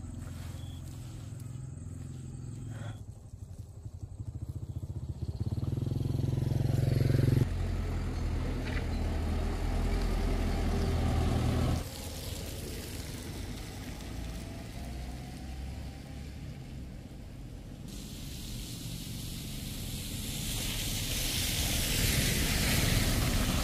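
Motor vehicles, likely motorbikes, running on a road: a low engine rumble that builds and cuts off suddenly about seven seconds in, carries on, then cuts again near twelve seconds. Near the end a rising hiss grows, like a vehicle approaching.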